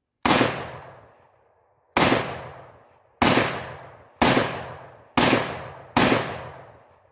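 Micro Draco 7.62×39mm pistol fired semi-automatically: six loud single shots, each with a ringing tail, spaced a little over a second apart at first and coming faster toward the end.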